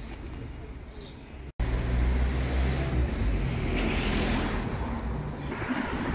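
City street traffic: a low rumble of passing vehicles with tyre hiss that swells about four seconds in and again near the end. The sound drops out for an instant about one and a half seconds in and comes back louder.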